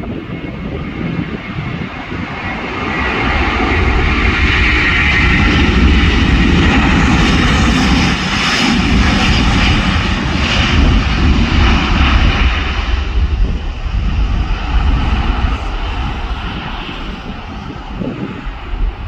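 Airbus A330's twin Rolls-Royce Trent 700 jet engines at takeoff power: a deep rumble and roar that builds, is loudest for several seconds in the middle as the airliner passes, then fades as it moves away.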